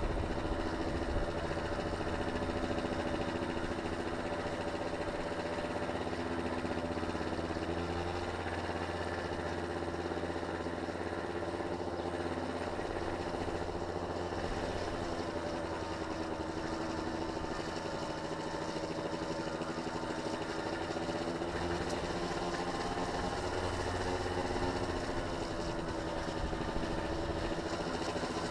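A small engine running steadily, its pitch shifting only a little, over road and wind noise.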